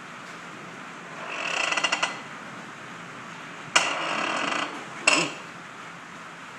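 Tube bender's steel mechanism creaking and ratcheting as its arm is worked. A rising run of fast clicks comes about a second in, then a sudden harsher stretch near four seconds and a brief one about five seconds in.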